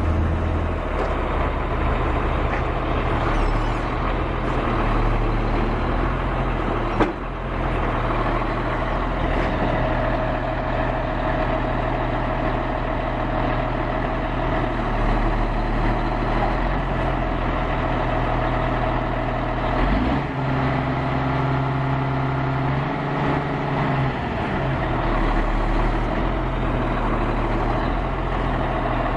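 Caterpillar 160H motor grader's diesel engine running steadily, with one sharp knock about seven seconds in and a change in the engine note around twenty seconds in.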